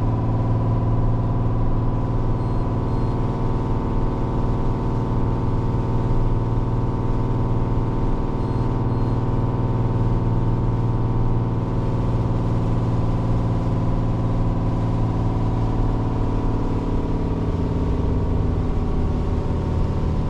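Scania truck's diesel engine droning steadily in the cab while braking on a long downhill, with the retarder pulled one stage higher to hold the truck's speed.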